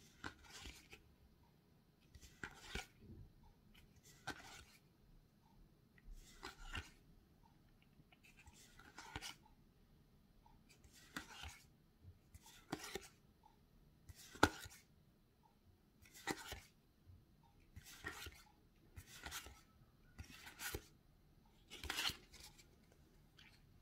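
Game cards being slid one at a time off a small stack held in the hand: a soft swish of card on card every one and a half to two seconds, about thirteen in all.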